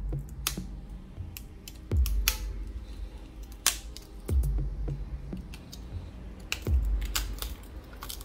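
Background music with a slow, deep bass beat about every two and a half seconds and sharp clicks over it.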